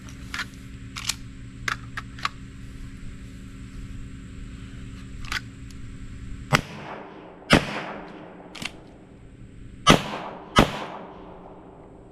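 Sig Sauer P320 Spectre Comp pistol fired four times in two quick pairs in the second half, each shot sharp with a short echoing tail. A few light clicks come before the shots.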